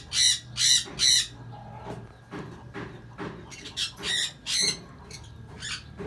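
Grey parrots squawking in short, harsh calls: three loud ones in quick succession at the start, then quieter calls, two more loud squawks around the four-second mark and another near the end.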